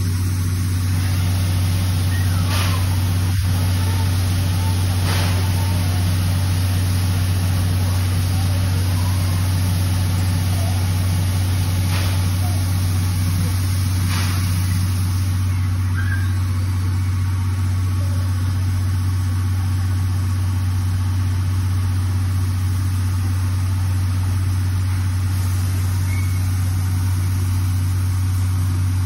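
Steady low mechanical hum with a hiss over it from a C11 steam locomotive and its train standing at the platform with steam up, unchanged throughout.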